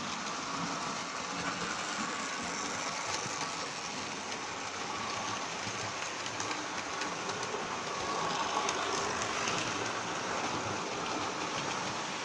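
Model tram running on the layout's track, a steady running noise without breaks.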